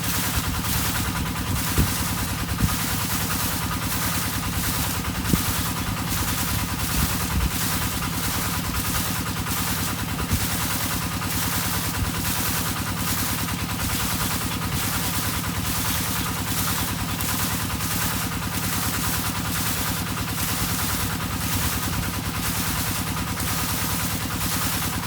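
Engine-driven irrigation water pump running steadily with a low hum, under frogs calling in a regular, pulsing chorus.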